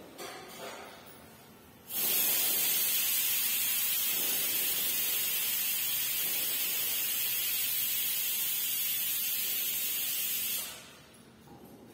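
A loud, steady hiss that cuts in suddenly about two seconds in and stops shortly before the end.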